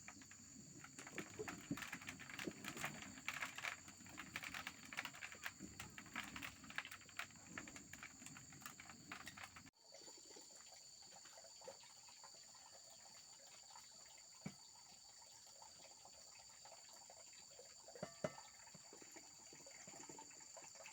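Dry vegetation rustling and crackling for about ten seconds, over a steady high insect drone. After a sudden cut the rustling stops, leaving the insects and a few faint clicks.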